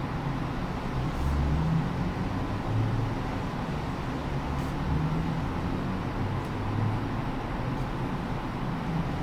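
Steady background rumble with an even hiss, the low rumble swelling and easing slightly, with a few faint ticks.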